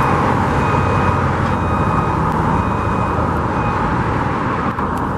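Steady road traffic noise, with a faint high beep repeating about once a second.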